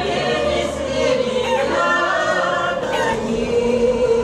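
A choir of elderly veterans singing together, with sustained, shifting vocal lines.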